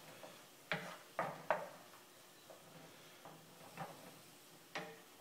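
Wooden spatula knocking and scraping against a pan while stirring sautéing mushrooms: three sharp taps close together about a second in, then a few softer ones.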